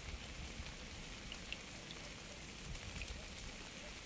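Steady rain: an even hiss of falling rain with individual drops heard as small, scattered ticks, over a faint low rumble.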